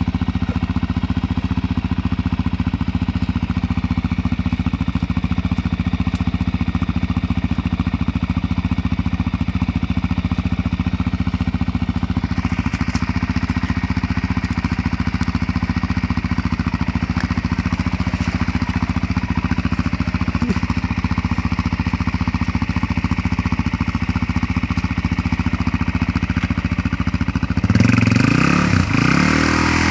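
Sport quad's engine idling steadily while the machine sits bogged in a mud hole, then revved up hard near the end as the rider tries to drive it out.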